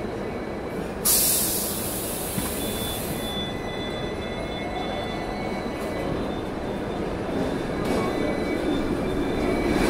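Hong Kong double-decker electric tram on street rails, a steady running rumble. About a second in, a sudden loud hiss lasts about two seconds, followed by a faint high squeal of wheels on rail. The rumble grows louder toward the end as another tram comes close alongside.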